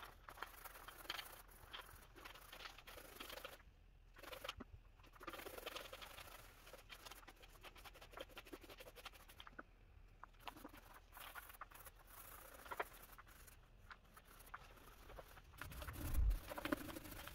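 Small paint roller rolling paint onto a wooden subwoofer box, in faint strokes with short pauses between them. Near the end a louder low thump as the roller is pressed onto the side panel.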